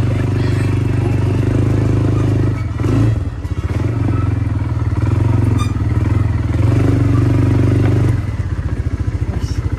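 ATV (quad bike) engine running at steady revs. It drops back twice, briefly about three seconds in and again near the end, to a slower, pulsing idle before picking up.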